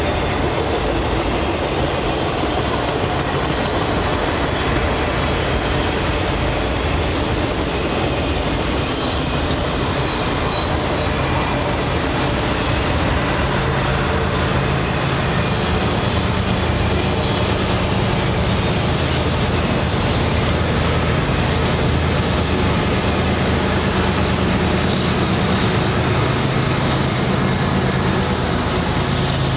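Freight train rolling past close by: a steady noise of auto-rack cars' wheels on the rails. From about halfway through, the low drone of another train's approaching diesel locomotives grows under it.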